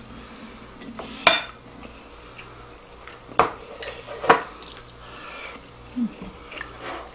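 Chopsticks clinking against ceramic bowls and plates during a meal: three sharp clinks about a second in, about three and a half seconds in and about four and a half seconds in, the last the loudest, with softer taps between.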